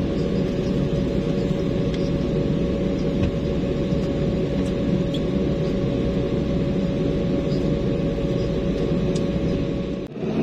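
Cabin noise of an Embraer E190's GE CF34 turbofan engines running at idle: a steady rumble with a constant whine over it. It drops out briefly near the end.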